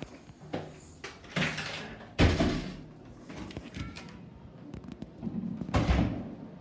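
Hotel room door opened and pulled shut, with a loud thud of the door closing about two seconds in, then another thump near the end.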